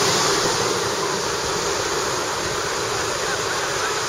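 Steady rushing of ocean surf on a beach.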